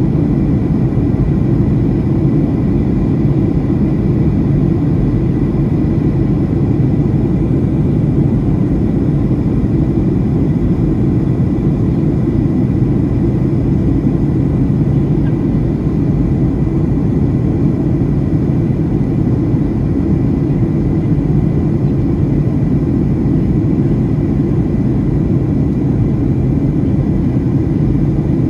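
Steady cabin noise inside a Boeing 737-700 in descent: an even, low rumble of its CFM56-7B jet engines and the airflow over the fuselage, with a faint steady high whine.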